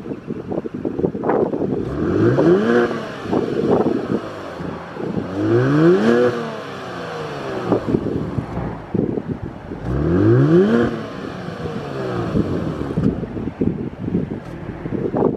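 Genesis G70's twin-turbo V6 being revved while parked: three revs, each a rising note that falls back to idle.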